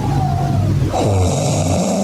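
A person snoring loudly with a rattling buzz; a hiss comes in about a second in.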